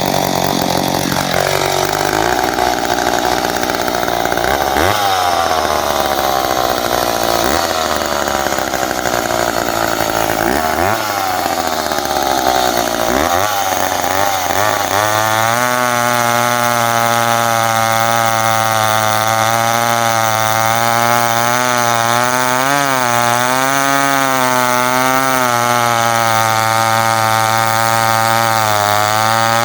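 McCulloch 10-10A two-stroke chainsaw revved up and let fall back four times, then held at a steady high speed for the second half, its pitch wavering slightly.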